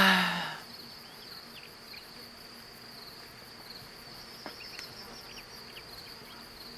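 Crickets chirping in a steady, high, pulsing trill. A man's drawn-out exclamation trails off in the first half-second.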